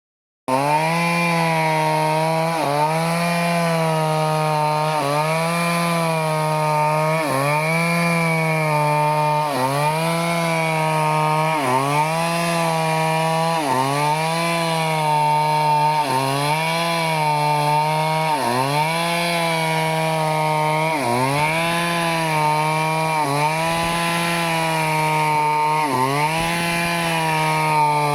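Two-stroke Stihl chainsaw running at high revs while cutting teak, its pitch dipping briefly about every two seconds as the chain bites into the wood, then recovering. The sound starts about half a second in.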